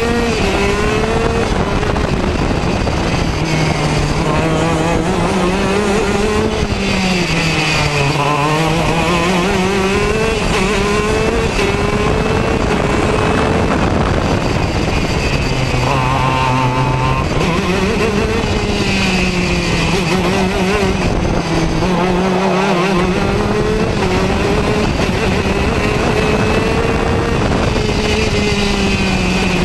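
Racing kart engine heard from the driver's seat, its revs rising on the straights and dropping into the corners, with the deepest dips about eight seconds in and again about sixteen seconds in.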